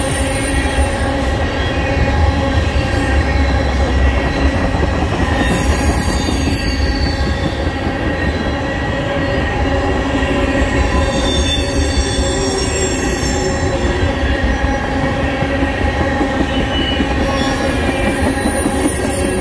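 Tank cars of a freight oil train rolling past, a continuous low rumble of wheels on rail with steady high-pitched squealing and ringing from the wheels.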